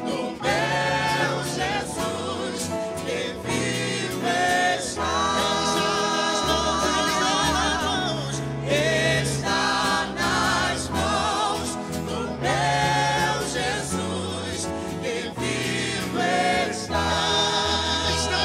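Mixed gospel vocal group, men and women, singing a song in close harmony with guitar accompaniment.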